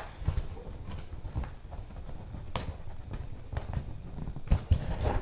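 Packaging being worked open by hand, which resists opening: a string of irregular small taps, knocks and scuffs, with a few sharper knocks about halfway and near the end.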